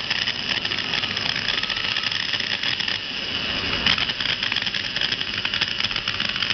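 Electric drill's brushed motor running steadily with a high whirr and a fine crackle of sparking at a carbon brush, which is held against the commutator by hand because it had jammed in its holder and was not passing current. The sparking is the sign of a worn, sticking brush that needs replacing.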